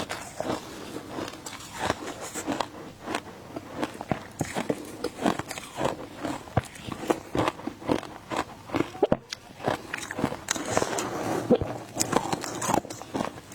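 A person biting and chewing shaved ice, with rapid, irregular crisp crunches, several a second.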